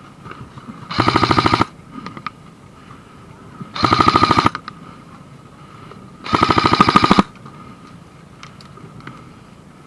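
Airsoft gun firing three short full-auto bursts of rapid clicking shots, about one and a half to two and a half seconds apart.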